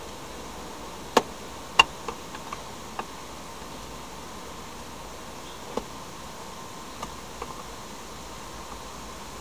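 Sharp plastic clicks and taps, a few close together between one and three seconds in and a few more spread later, as a Honda map-light switch is pried out of the overhead console. A faint steady hum runs underneath.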